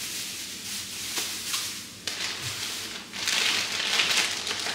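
Plastic grocery and produce bags crinkling and rustling as they are handled and rummaged through, getting louder and busier in the last second and a half.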